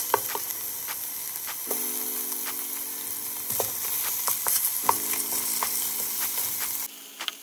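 Food frying in a pan: a steady sizzle with scattered sharp pops and crackles, over a low hum that comes and goes. The sizzle drops away abruptly near the end.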